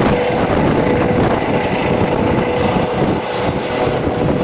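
Medical helicopter running at low height close by: the rotor chops steadily under a steady engine whine.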